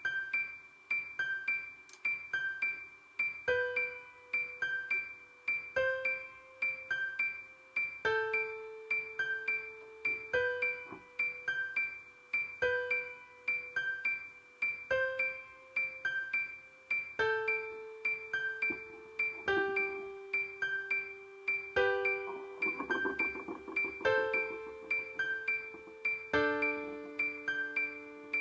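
Background music: a piano tune with a steady pulse of repeated high notes, about two a second, over a low note that changes every couple of seconds.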